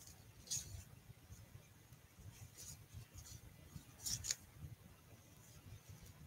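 Faint scratchy rustles and small ticks of fingers tying a knot in a thin cord over a paper planner. A few brief ones come and go, the loudest about four seconds in.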